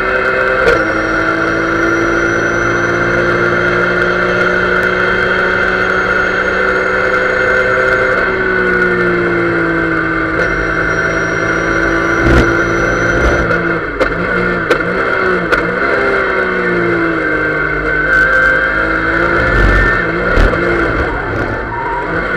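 In-car sound of a Porsche 911 GT3 race car's flat-six engine running hard at high revs, with a steady high whine over it. The engine note falls about eight seconds in. It wavers in quick blips around fourteen to sixteen seconds in, dips again, and climbs back up near the end, as the car brakes, changes gear and accelerates through corners. A few sharp knocks and rattles come from the cabin.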